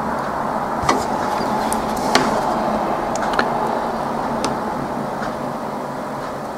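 Steady rushing background noise with about four small sharp clicks from hand-soldering a circuit board, as the soldering iron tip and solder wire touch the board.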